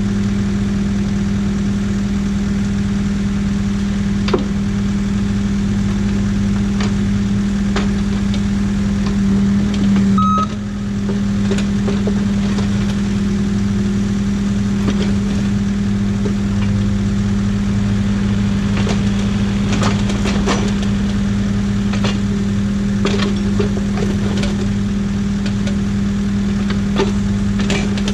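Excavator's diesel engine running steadily, with scattered sharp knocks and clatter from the machine at work. About ten seconds in, the level dips briefly and a short high tone sounds.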